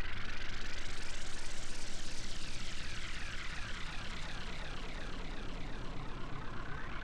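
Steady rushing noise with tones sweeping up and down through it in a phasing, whooshing pattern, a little quieter after about three seconds.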